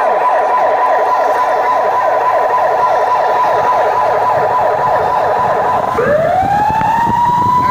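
Vehicle siren sounding loud in a fast, repeating yelp for about six seconds, then switching to a slow wail that rises and begins to fall near the end.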